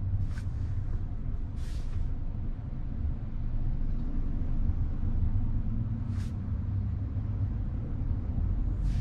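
Steady low rumble inside the cabin of a 2024 Tesla Model Y in traffic, with three brief hisses: about a third of a second in, near two seconds in, and about six seconds in.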